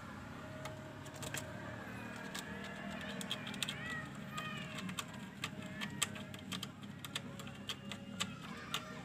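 A kitten's claws clicking and scratching on a wooden post as it climbs, a run of sharp clicks that come faster in the second half.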